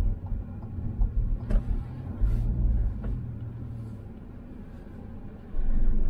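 Car moving slowly, heard from inside the cabin: a low engine and road rumble that swells a few times, with a couple of faint clicks, and is loudest for about a second near the end.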